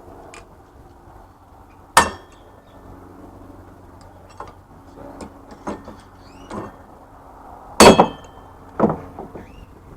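Hammer blows on a scrap electric motor's cast iron housing, metal on metal with a short ringing clang. There is one hard strike about two seconds in and a few lighter knocks, then the loudest pair of blows near eight seconds and another just before nine.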